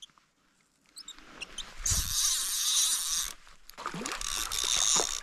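A small hooked brook trout splashing at the water's surface as it is reeled in, in two spells after a few light clicks.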